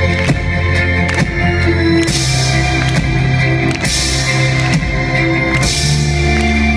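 Live band music from keyboard and drum kit, with three cymbal crashes a couple of seconds apart over held low notes.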